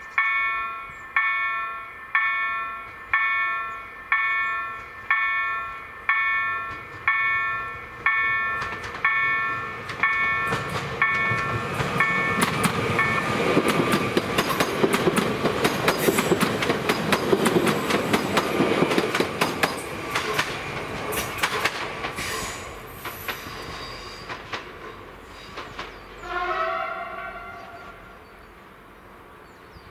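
EDE-1 electronic level-crossing bell striking about once a second as the crossing warning, stopping about twelve seconds in as an electric passenger train passes with rapid clicking of wheels over the rails. The train noise fades, and a short horn blast sounds near the end.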